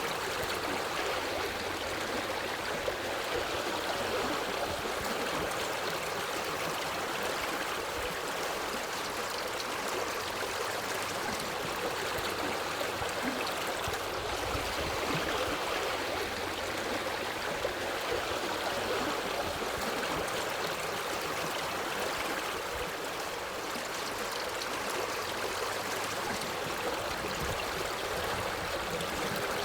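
Forest stream flowing steadily, an even rush of running water with no breaks.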